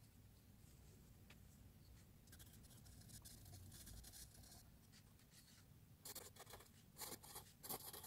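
HB graphite pencil scratching on paper, sped up threefold: light, quick shading strokes, then a few louder, sharper strokes near the end as cursive lettering is written.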